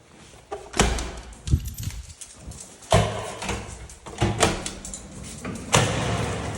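A ball knocking about on a hard floor during a Welsh corgi's ball game: several irregular thuds and knocks, the loudest about a second in and three seconds in.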